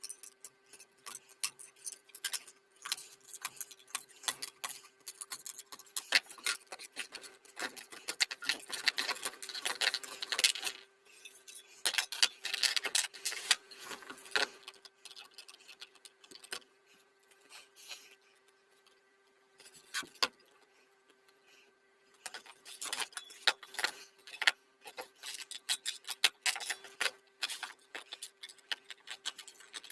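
Irregular metallic clicking, tapping and scraping of small metal parts and hand tools being worked, in busy spells with a lull past the middle, over a faint steady hum.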